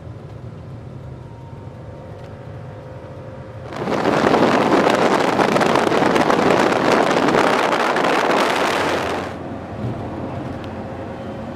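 A steady vehicle hum. About four seconds in, a much louder rushing noise covers it for about five seconds and then cuts off abruptly.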